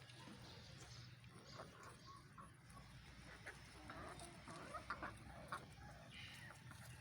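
Faint, scattered clucking from laying hens, the short calls coming more often in the second half.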